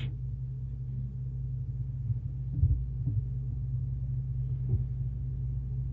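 Steady low hum of the recording, with a few faint soft knocks near the middle.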